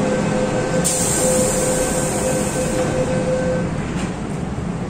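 MTR M-Train electric metro train pulling out of an underground platform: a steady rumble with a steady electric motor whine that stops about three and a half seconds in, and a high hiss from about a second in.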